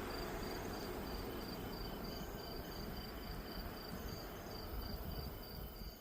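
Crickets chirping in a steady rapid pulse, a second fainter chirping joining about a second in, over a low background rumble.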